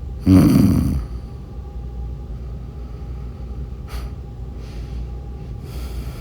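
A sleeping woman snoring: one loud snore of under a second near the start, then a brief click about four seconds in and a soft breath near the end. A steady low rumble runs underneath.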